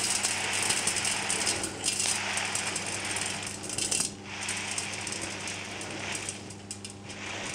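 Buckwheat grains poured from a paper bag into a Thermomix's stainless steel mixing bowl: a continuous rattling hiss of many small grains striking metal, easing briefly about four seconds in.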